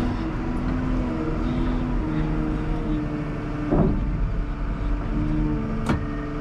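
2021 Komatsu WA320 wheel loader's diesel engine running, heard from inside the cab, its pitch rising and falling as the loader is driven and turned. There is a clunk about four seconds in and a sharp knock near the end.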